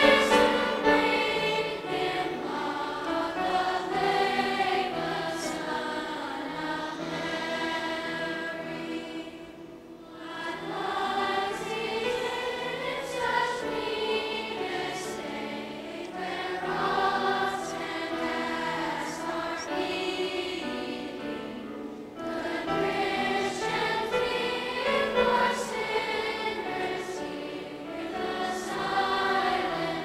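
A children's choir singing, in long sustained phrases that dip briefly about ten seconds in and again a little past twenty seconds.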